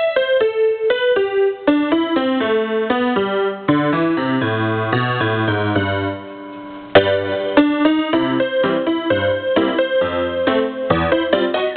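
Electronic keyboard playing a tune: a melody over chords and a bass line, going softer for about a second near the middle before coming back in.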